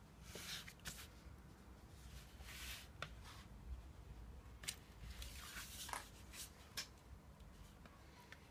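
Utility knife blade cutting through thin cereal-box card along a gasket outline: a series of faint, short scratchy strokes with a few light ticks.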